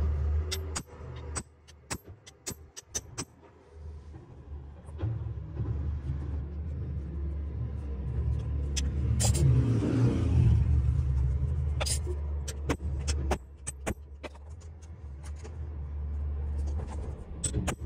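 A low steady rumble, like a motor vehicle's engine, that swells about halfway through, with many short sharp clicks and taps over it.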